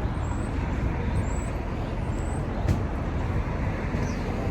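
Steady road traffic noise from a busy road.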